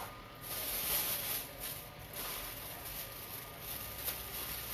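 Thin plastic bag rustling and crinkling as it is handled and opened, loudest in the first two seconds, with a small click about four seconds in.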